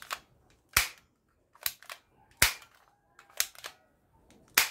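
Red plastic toy pistol being dry-fired: three sharp snaps of its trigger mechanism, roughly two seconds apart, with fainter double clicks between them.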